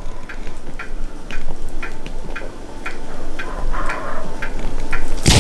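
A steady run of clock-like ticks, about two to three a second, over a constant noisy background.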